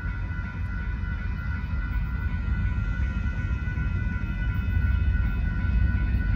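Railroad crossing bell ringing steadily, over a low rumble that grows louder toward the end as the train approaches.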